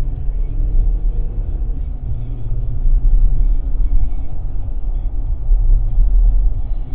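Steady low rumble of a car's engine and tyres on the road, heard from inside the moving car through the dashcam's microphone.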